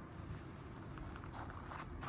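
Small wood fire of fire sticks burning in a micro stove, giving off faint scattered crackles and pops over a low rumble.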